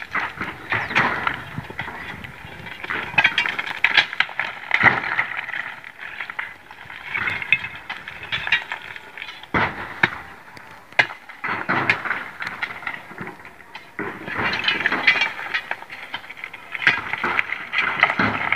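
Broken stone clattering and tumbling in irregular bursts as rock is worked loose by hand in a stone quarry, with sharp knocks of a hand tool striking rock. The loudest knocks fall a little under ten seconds in and again about a second later.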